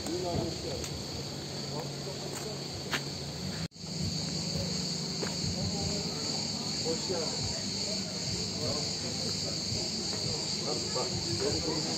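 Cicadas droning steadily in the trees, a continuous high-pitched shrill, with faint voices of people milling about beneath it. The sound cuts out for an instant about four seconds in.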